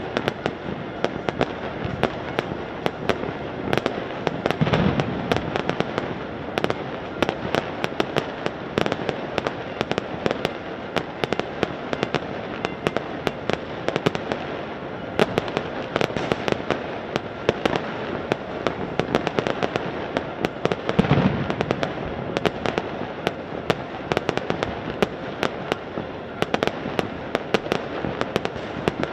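Many fireworks and firecrackers going off across a city at once: a dense, continuous crackle of overlapping bangs, with heavier booms about five seconds in and again about twenty-one seconds in.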